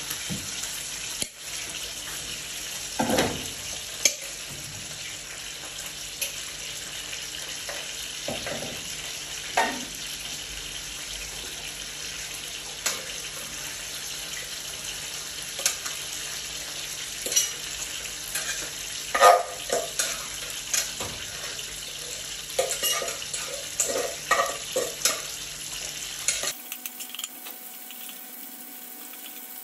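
Steady cooking hiss from a pot of boiling water on a gas stove, with scattered clinks and clatters of a metal spoon and pot as rice is added and stirred. Near the end the sound cuts abruptly to a quieter, steady hiss.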